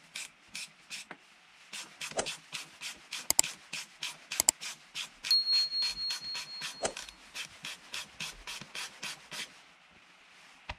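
A bicycle's rear shock mounting bolt being worked loose with a hand tool: a run of even clicking strokes about four a second, with a few sharper clicks and a thin high steady tone held for over a second midway.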